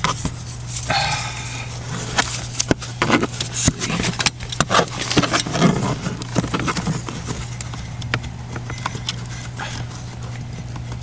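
Hands plugging the blower motor's wiring back in under the dashboard: a run of small clicks, taps and rustles of plastic and wire, busiest in the middle.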